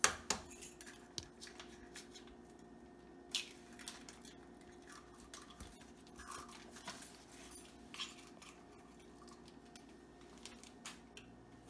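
Zip-top plastic bag crinkling and rustling as it is held open and handled while eggs are broken into it, with scattered light clicks and crackles over a faint steady hum.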